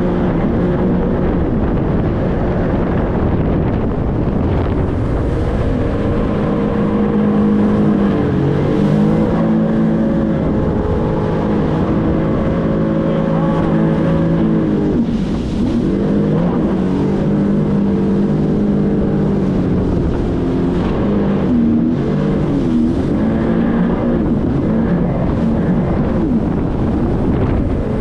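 Jet ski engine running at speed, its pitch dipping and climbing back several times as the throttle is eased and reopened through turns, over a steady rush of water spray and wind.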